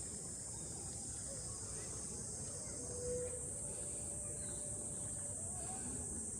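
Steady, high-pitched chorus of insects singing continuously.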